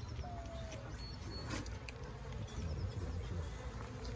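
Honey bees buzzing: a steady drone of many bees from a colony disturbed while its comb is being cut out and moved.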